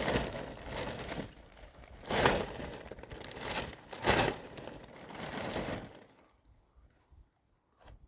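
Crinkling and rustling of a sheet of material being handled, in about five bursts, then it falls quiet about six seconds in.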